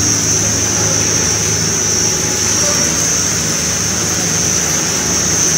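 DG65-II twin-screw food extruder line running steadily: a constant machine hum with a high, unwavering whine over it.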